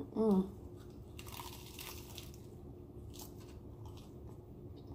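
Bite into a hard nacho-cheese taco shell filled with ground turkey and lettuce: the shell cracks and crunches loudly for about a second, starting a little over a second in, followed by a single crisp crack near the end. A brief voiced hum from the eater comes right at the start.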